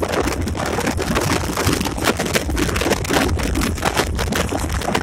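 Inside the cab of a moving EMD SD24 diesel locomotive: a steady low engine and running drone, with wind buffeting the microphone in frequent gusts and the cab jostling over rough track.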